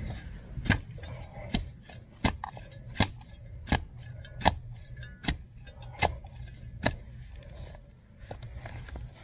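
Short-handled spade chopping into soil and mulch: about nine sharp strikes at a steady pace, a little over one a second.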